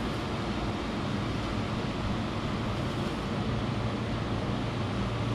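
Steady low machine hum with an even hiss, holding level throughout, from equipment running in the background.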